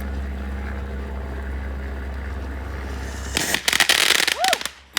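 Steady background rumble, then about three and a half seconds in a dense run of rapid, loud crackling pops from a crackling firework for about a second and a half.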